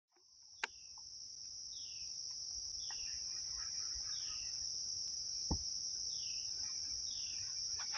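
Steady high-pitched insect chorus that fades in at the start and holds, with a short falling call repeating every second or so. A single click comes early and a low knock about five and a half seconds in.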